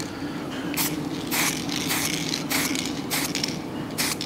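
Aerosol can of green spray paint hissing in a series of short bursts, about six in four seconds.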